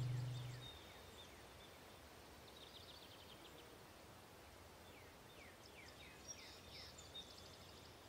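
A plucked guitar note dies away in the first second, leaving faint outdoor ambience with small birds chirping: short, quick, falling chirps in a few scattered clusters.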